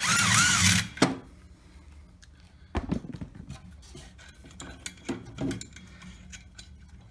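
Porter-Cable cordless impact wrench hammering for about a second as it breaks loose the bolt holding a snowmobile's primary clutch to the crankshaft. After that, only a few light clicks and knocks.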